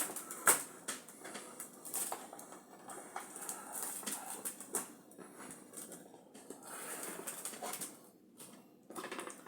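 Handling noise: irregular light clicks and taps with soft rustling.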